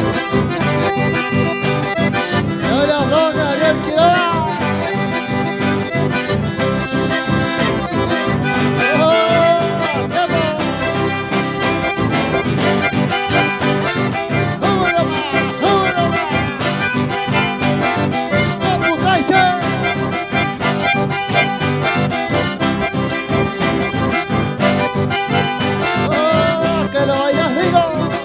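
Live dance music from an accordion-led band over a steady beat.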